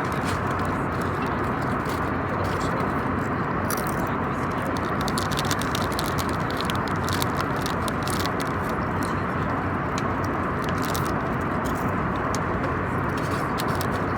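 Steady drone of an airliner cabin in cruise flight, with small crackles and clicks scattered over it from about four seconds in.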